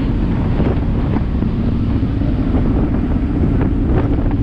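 Wind buffeting the microphone on the open deck of a moving passenger ferry, over the steady drone of the boat's engine and water rushing past the hull.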